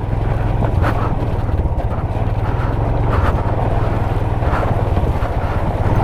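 Royal Enfield Himalayan's single-cylinder engine running steadily at low revs, its even thump over the rush of water at a stream crossing.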